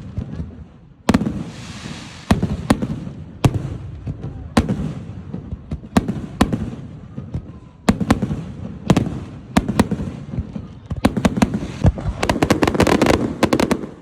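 Fireworks display: aerial shells bursting with sharp booms about every second, each followed by a trailing rumble. Near the end comes a dense run of rapid crackling reports.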